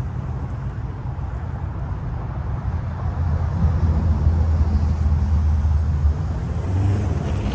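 Low vehicle rumble that grows louder a few seconds in, with a steady low hum through the middle, from a light-rail train passing and a car running out of sight.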